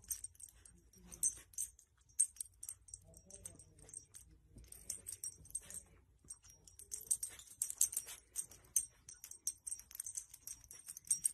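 A pet's small collar bell jingling in short, irregular shakes as the animal moves, the jingling thicker in the second half.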